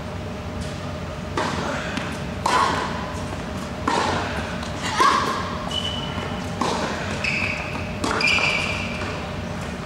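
Tennis balls struck by racket and bouncing on an indoor hard court, six sharp hits about a second or so apart, with a few short high squeaks in the second half.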